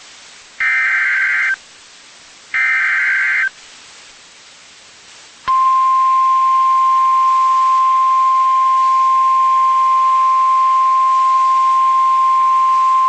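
NOAA Weather Radio emergency alert: two roughly one-second bursts of buzzy SAME digital header tones, then, about five and a half seconds in, the steady 1050 Hz warning alarm tone starts and holds. It is the alert signal that opens a new severe thunderstorm warning.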